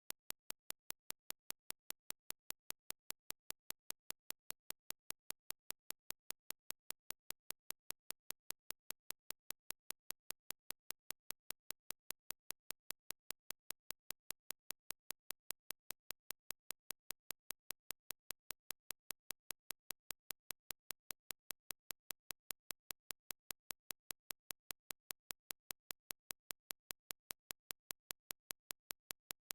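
A steady, machine-even train of sharp clicks, several a second, with near silence between them and no music or voice.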